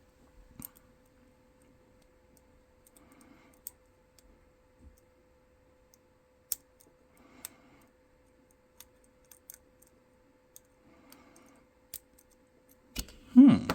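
Faint, scattered clicks of a lock pick and tension wrench working the pins inside a Master Lock padlock. A faint steady hum runs underneath, and shortly before the end comes a short, louder sound that falls in pitch.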